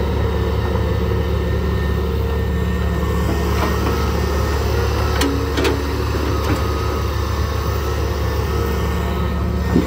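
Large excavator's diesel engine running at a steady speed, with a couple of short clicks about five seconds in and a knock near the end.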